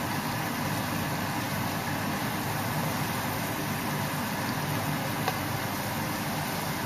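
Thin pepper-seasoned steaks and garlic cloves sizzling steadily in hot fat in a frying pan, as tongs turn the meat. A single click comes about five seconds in.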